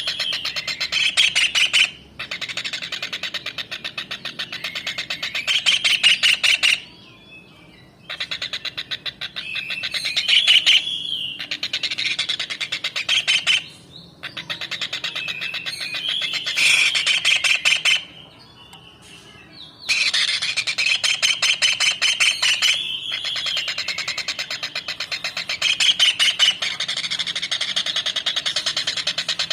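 Tengkek udang (small kingfisher) singing a fast, high chattering series of rapidly repeated notes in phrases a few seconds long, broken by short pauses.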